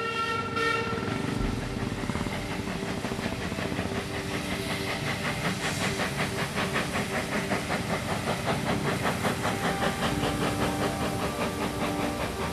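Steam locomotive working along the line, its exhaust giving a quick, regular run of chuffs over a steady hiss of steam. A steady tone comes in near the end.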